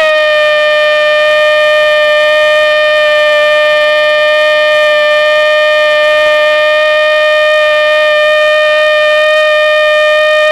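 Football commentator's drawn-out goal cry, "goooool", shouted as one unbroken, loud, steady high note.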